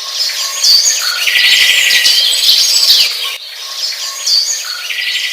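Birds chirping and trilling in quick, high calls. The short birdsong recording cuts off about three seconds in and starts over as a loop.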